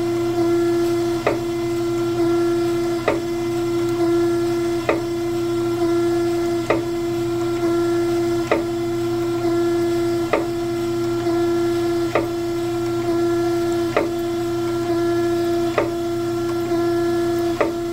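Surface grinder running with a steady whine, its wheel grinding dry across a high spot on a hollow steel prism. The reciprocating table knocks at each reversal, about every two seconds.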